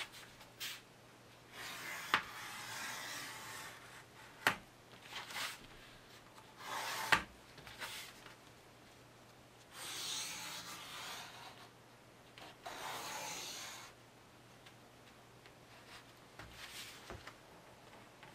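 Knife drawn along a straight edge, cutting through board: four separate scraping strokes of one to two seconds each, with a few sharp knocks in between.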